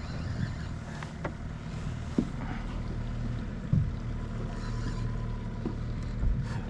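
Steady low rumble aboard a small fishing boat on open water, with a few brief light knocks.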